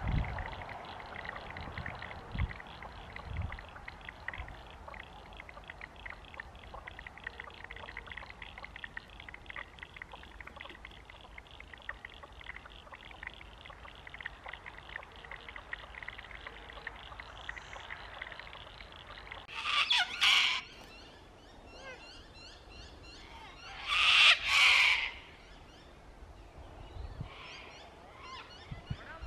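Two loud, harsh cockatoo screeches, each about a second long: one about twenty seconds in and a second, doubled one some four seconds later. Before them a faint steady high chirring runs in the background.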